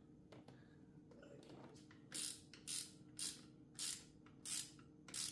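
Ratchet wrench clicking in short back-swing bursts, six of them about half a second apart starting about two seconds in, as a new spark plug is run down snug.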